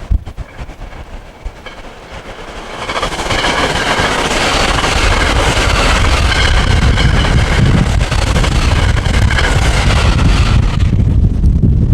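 A train passing close by: its rushing running noise swells in about three seconds in and stays loud for some seven seconds. Near the end the hiss falls away suddenly, leaving a low rumble.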